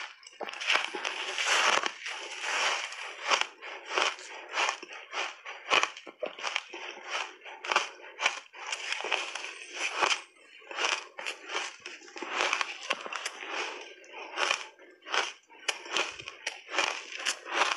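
Crunchy shaved ice coated in matcha powder being bitten and chewed: rapid, irregular crunching and crackling, densest from just after the start to about three seconds in.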